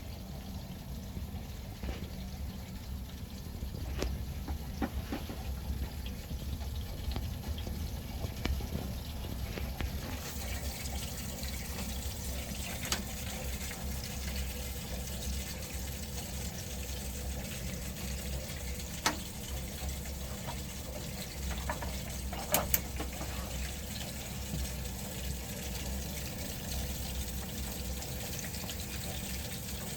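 Worcester Bosch boiler rattling constantly with a low, fluttering rumble and a watery flowing sound, a fault noise that persists after a repair. A few sharp clicks stand out, the loudest about two-thirds of the way through.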